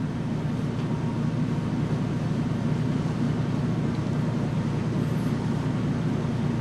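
Steady low background drone, even and unchanging, like a running fan or air-conditioning unit.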